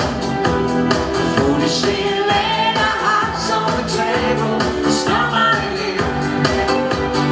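Pop song with a singer over a steady drum beat and band backing.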